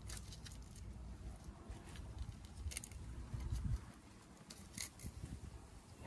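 Soft rustling and a few short clicks from hands tying a cord onto the wire frame and netting of a collapsible mesh shrimp trap, with a low rumble underneath.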